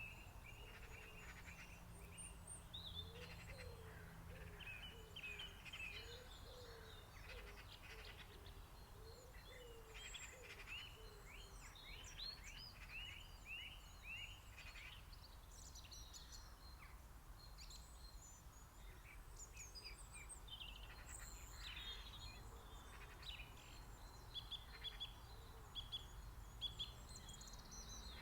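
Faint mixed songbird chorus, several birds singing and calling at once in short high phrases, with a low call repeated over and over through the first half.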